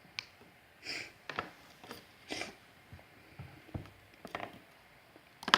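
Scattered small clicks, taps and brief rustles of hands working a wire end onto the terminal of a small switch, with a sharper click about five and a half seconds in.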